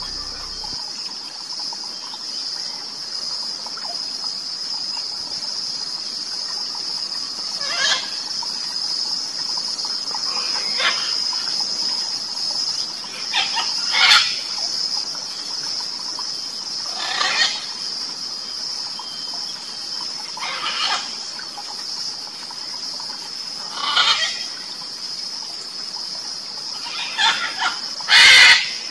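Steady high-pitched insect drone, broken every few seconds by short harsh squawks from red-and-green macaws, about nine in all, the loudest near the end.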